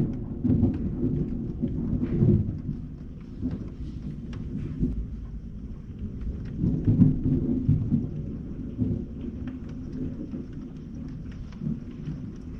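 Thunder rumbling low and rolling, swelling in the first couple of seconds and again about seven seconds in, over falling rain with scattered drops tapping close by.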